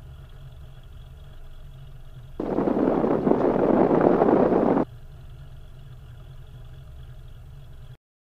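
Cessna Skylane's engine humming low through the cockpit intercom, broken about two seconds in by a burst of radio static lasting about two and a half seconds that starts and stops abruptly, like a transmission keyed with no words.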